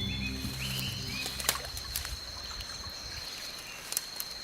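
Waterside rainforest ambience: water gently trickling and lapping under a steady high-pitched tone, with a few short bird-like chirps in the first second and a couple of sharp clicks. The tail of low background music fades out at the start.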